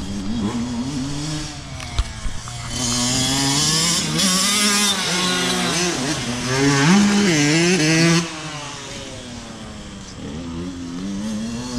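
Honda CR85R 85cc two-stroke dirt bike with an FMF exhaust, revving hard, its pitch rising and falling as the rider works the throttle and shifts. It is loudest in the middle, around the jump, and drops away suddenly about eight seconds in before carrying on more quietly.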